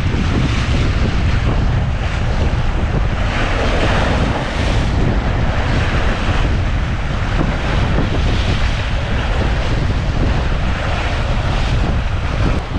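Strong wind buffeting the microphone with a heavy rumble, over sea surf washing against shore rocks in swells.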